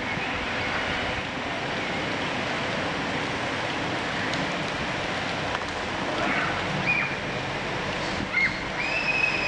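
A steady rushing noise, with short high whistle-like notes near the end, the last held for about a second.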